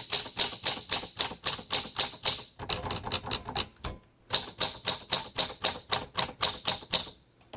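A 1946 Smith Corona Silent manual typewriter being typed on with a light touch: a quick run of key strikes, about five or six a second, with a short pause about four seconds in. The Silent's key strikes are slightly dampened.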